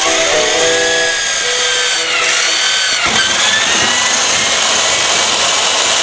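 Cordless drill boring a rivet hole through sheet steel, running steadily with a high metallic whine that dips and rises in pitch a few times.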